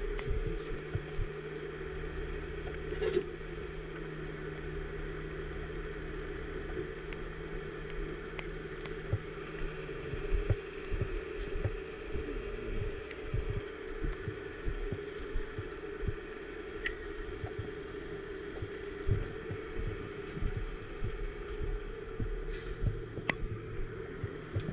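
Heavy rotator wrecker's diesel engine running steadily to drive the boom hydraulics, with irregular low thuds and a few light clicks over it.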